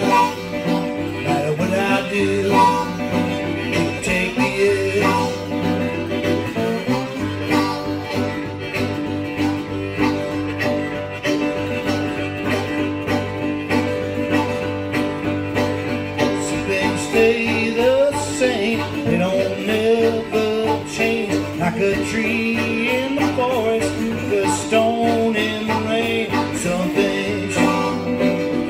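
Harmonica and guitar playing a one-chord Mississippi blues together: the harmonica, played with cupped hands, wails over a steady, driving guitar figure. Bending, sliding notes come about two-thirds of the way in.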